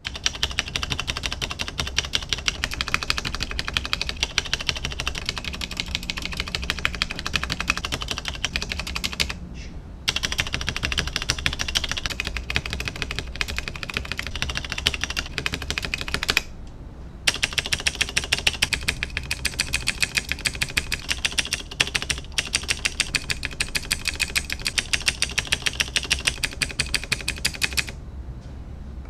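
Fast, continuous typing on a mechanical keyboard, dense keystroke clacks many times a second, in stretches broken by short breaks about ten seconds in, after about seventeen seconds, and near the end.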